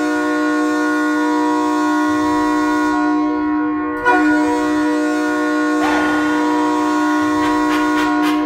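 Hockey arena goal horn sounding one long, steady, deep blast. It breaks briefly and sounds again about four seconds in.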